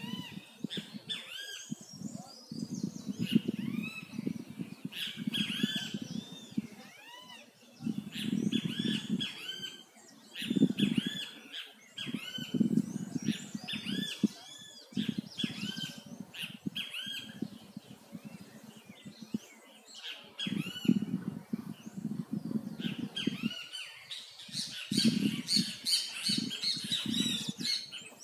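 Wild birds calling over and over in short, arching chirps and squawks, thickening into a busy chorus near the end. Underneath runs a low, intermittent murmur.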